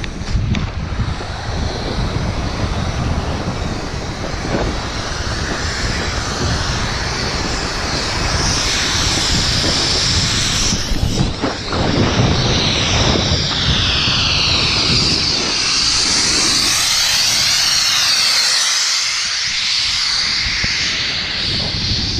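Wind rushing and buffeting on the microphone while a snowboard slides and carves over snow, a steady loud hiss that swells and wavers in pitch as the board turns.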